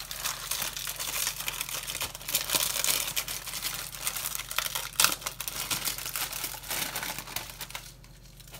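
A sleeve of crackers being crushed by hand: continuous crinkling of the paper wrapper with the crackers crunching inside, a sharp crack about five seconds in, and the sound dying down near the end.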